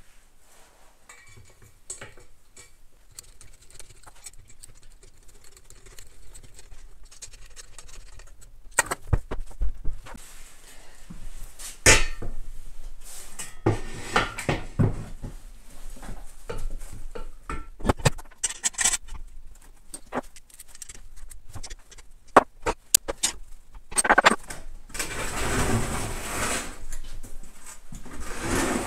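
Metal clanks, knocks and scraping as a 50 cc 139FMB pit bike engine is handled and fitted onto a steel repair stand. Light clicks and handling sounds at first, then several sharp knocks from about nine seconds in, and a longer stretch of scraping clatter near the end.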